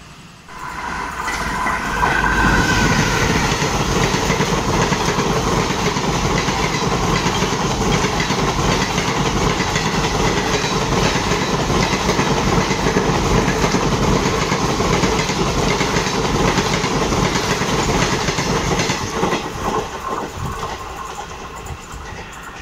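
A train passing on the adjacent line, heard from a stationary coach: the sound of its wheels running on the rails swells in about two seconds, holds steady and loud, then fades away near the end.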